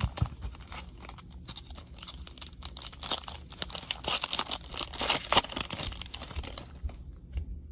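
Crinkling and rustling of baseball cards and foil pack wrapper being handled, a dense crackle that builds to its busiest from about two to six seconds in.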